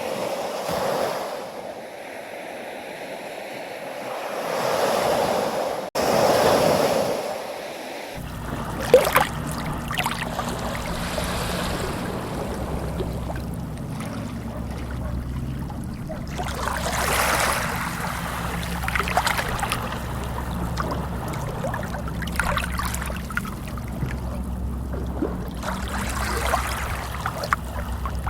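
Sea waves washing in slow swells. About eight seconds in, the sound changes abruptly to a busier splashing, trickling water sound over a steady low hum.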